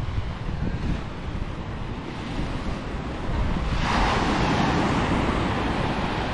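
Sea waves on a beach: a wave breaks and washes up about four seconds in, over wind buffeting the microphone.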